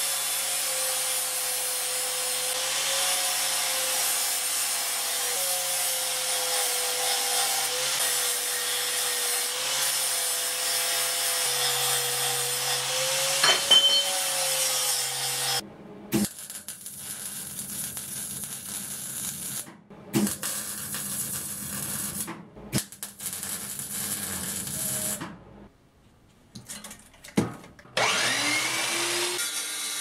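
Angle grinder grinding steel for about 15 seconds, a steady hiss with a wavering tone. Then a MIG welder crackling in short runs with pauses between them. Near the end, an abrasive metal chop saw's motor spins up to speed and starts cutting steel flat bar.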